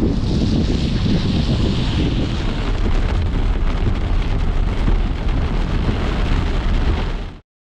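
Loud steady roar of falling water, with wind rumbling on the microphone; it cuts off abruptly near the end.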